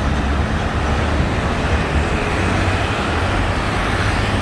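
Steady road traffic noise with a strong low rumble and no single standout event.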